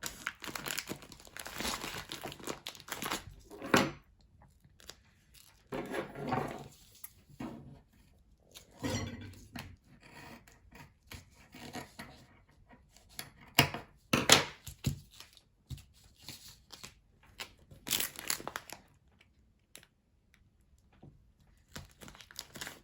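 Camo Gorilla tape being pulled off the roll and pressed onto a plastic bag of rice: several separate bursts of ripping and crinkling.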